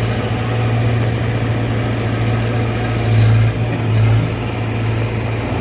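A large engine running steadily with a low drone, swelling briefly about three seconds in and again about four seconds in.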